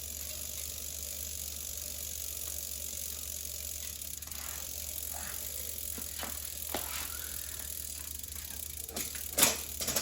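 Schwinn Continental bicycle drivetrain running as the cranks are turned by hand: the chain hisses steadily over the sprockets, and a few sharp clicks come as the front derailleur is worked, the loudest near the end.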